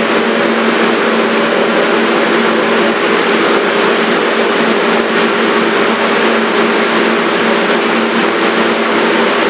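Kawasaki R-143 subway car running at steady speed: loud, continuous rail and running noise with a steady hum from its Bombardier MITRAC traction motors.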